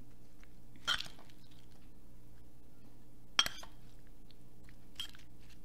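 Metal fork and knife cutting and clinking in a salad bowl: a few short clinks, the loudest about three and a half seconds in, over a steady low electrical hum.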